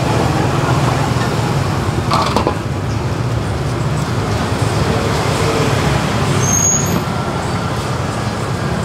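Steady street ambience: a continuous low rumble of passing road traffic.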